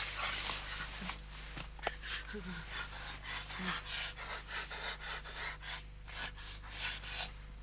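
Rustling of sleeping bags and clothing with heavy breathing as a couple make out in a tent, a few soft vocal sounds in between. A low steady hum runs underneath.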